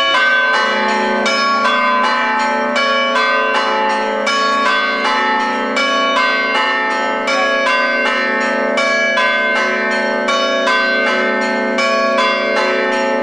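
Church bells ringing in quick, evenly repeated strikes, about three a second. Several bells of different pitch sound together over a steady low hum.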